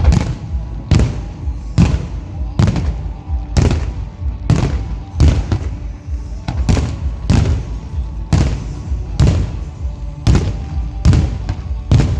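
Aerial firework shells bursting in a rapid series of sharp bangs, roughly one a second, each with a short echoing tail, over music.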